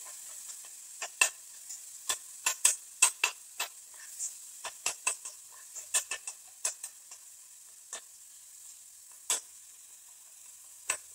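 A spatula stirring and scraping tomato masala in a metal kadhai: sharp, irregular clicks and taps against the pan, about two or three a second, over a faint sizzle of the masala frying in oil. The tapping pauses near the end.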